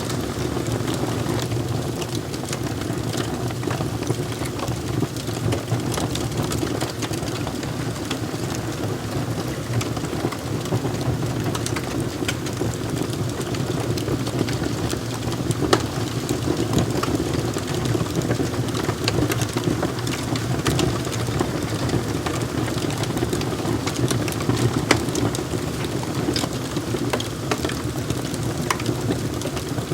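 Wood fire crackling in a fireplace: a steady low rumble of burning with scattered sharp pops and snaps, a louder pop a little past the middle and another near the end.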